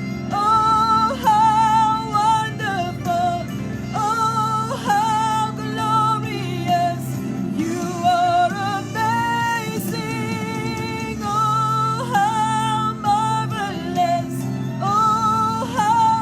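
Live worship song: a woman's lead voice sings long, held notes over steady band accompaniment.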